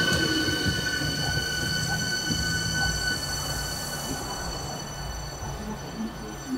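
Hankyu electric commuter train braking to a stop at the platform, with a steady high-pitched squeal that fades out about halfway through as the train comes to rest, over a low rumble that dies away.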